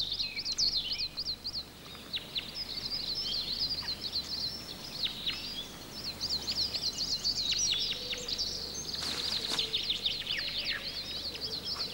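Several small songbirds chirping and twittering without a break: quick, high, repeated notes and short trills.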